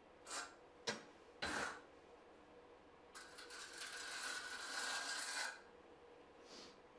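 Small steel trowel scraping and spreading thin-set mortar on a cut tile strip: a few short scrapes and a sharp click in the first two seconds, then one long scrape from about three seconds in to five and a half.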